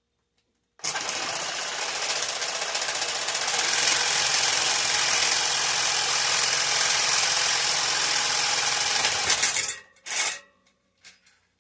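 Power tool cutting into aluminium bar stock, running steadily for about nine seconds with a fast, even chatter, then a short burst about a second after it stops.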